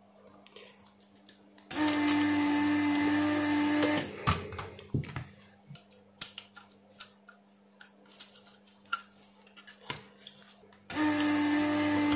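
Electric desoldering gun's built-in vacuum pump running in two steady bursts, a little over two seconds each, about two seconds in and again near the end, sucking molten solder from a diode's joints on a circuit board. Small clicks and knocks of the board being handled come between the bursts.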